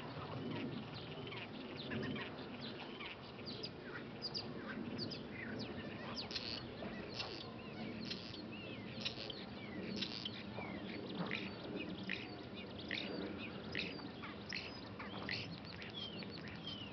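Common starling singing: a fast, varied, unbroken run of short whistles, clicks and sliding notes, over a low steady rumble.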